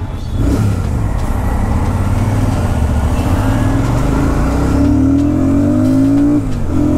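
Royal Enfield Super Meteor 650's 648 cc parallel-twin engine pulling under hard acceleration in a 0 to 100 km/h run, its pitch climbing steadily. Near the end the pitch drops sharply as it shifts up, then climbs again.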